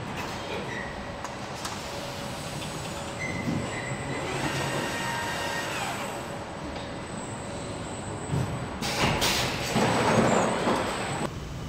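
Factory machine noise in a car body shop: a steady hum of assembly-line robots and conveyors, with a whine that rises and falls between about four and six seconds in. About nine seconds in a loud burst of hissing lasts over a second.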